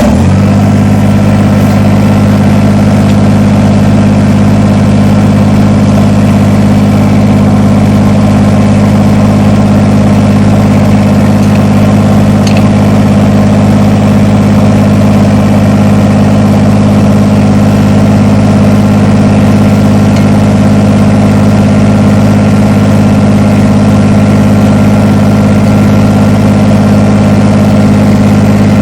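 Kubota BX compact tractor's three-cylinder diesel engine, just started, idling loud and steady close by.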